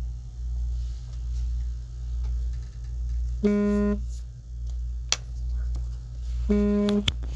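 Background music: a low bass pulse swelling and fading about once a second, with two short held notes about three seconds apart. A few light clicks are also heard.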